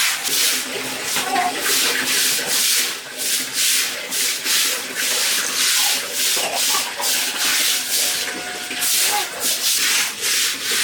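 Rhythmic scraping or scrubbing by hand: quick repeated strokes, about two a second, with a rough, hissy sound.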